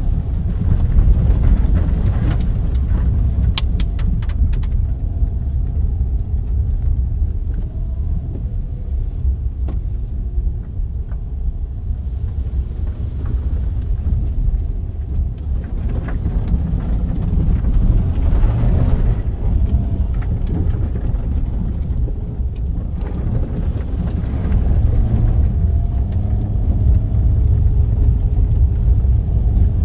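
Volkswagen Tiguan driving over a rough dirt track, heard from inside the cabin: a steady low rumble of engine and tyres on the uneven ground. A brief run of sharp clicks comes about four seconds in.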